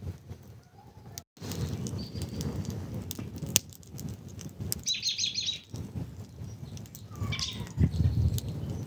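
Wood fire crackling and popping in a stone fire pit over a low rumble. A bird gives a short chirping trill about five seconds in.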